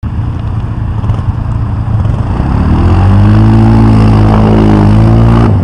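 ATV engine pulling through a mud hole: it runs steadily, revs up about two seconds in, is held at high revs, then drops off abruptly near the end.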